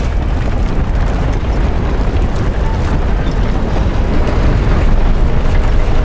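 Bottom trawl net dragging across the seabed, a loud, continuous low rumble of churning sediment that grows slightly louder toward the end.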